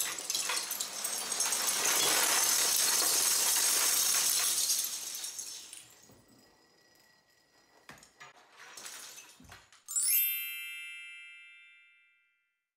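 Loose LEGO bricks raining down and clattering onto a hard floor for about five seconds, then a few single clicks. About ten seconds in, a bright chime rings out and fades over about two seconds.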